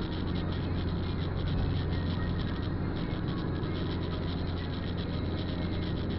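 Steady road and engine drone of a car driving on a wet highway, heard from inside the cabin, with a low hum and many small ticks of rain hitting the windshield.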